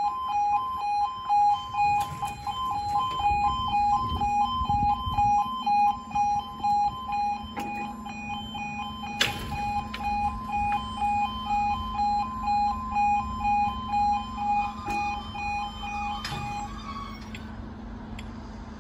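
Two-tone 'yodel' warning alarm of a UK level crossing, switching rapidly back and forth between two pitches, with a steady low hum beneath it and a few sharp clicks. The alarm stops about a second before the end, once the barriers are fully lowered.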